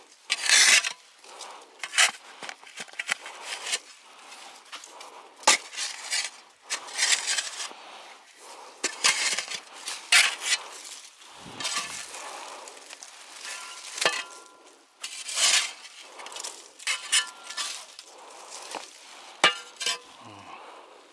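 Short-handled steel shovel digging into packed soil and gravel, in irregular strokes about once a second: the blade scrapes and chops through the dirt, with sharp clinks where it strikes stone.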